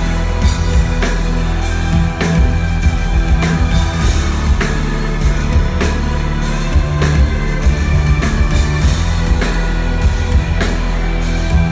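Live rock band playing loud through a venue sound system: electric guitar over heavy bass and a steady drum beat.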